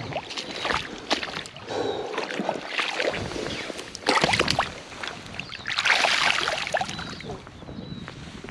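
Splashing and sloshing of shallow river water as a trout is released by hand, with the loudest splashes about four seconds in and again around six seconds in.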